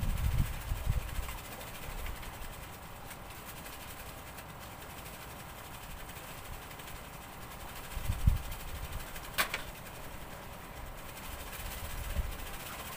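Wind buffeting the microphone in uneven low gusts, strongest at the start and again about eight seconds in, with a single sharp click about nine and a half seconds in.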